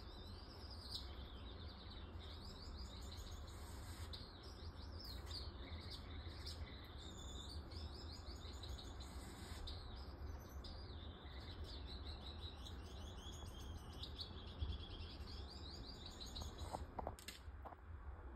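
Splendid parakeets (scarlet-chested parrots) twittering: a continuous run of quick, high chirping phrases over a steady low hum, with a few soft clicks near the end.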